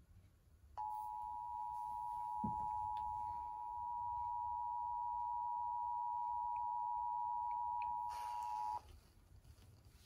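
Emergency Alert System attention signal, the two-tone alarm of 853 and 960 Hz sounding together from a portable radio's speaker, starting about a second in, holding steady for about eight seconds and cutting off. It announces an EAS message, here a Required Monthly Test.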